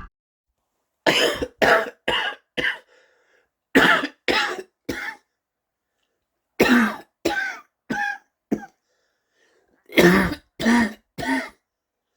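A person coughing in four short fits of three or four coughs each, with near-silent gaps of about a second between the fits.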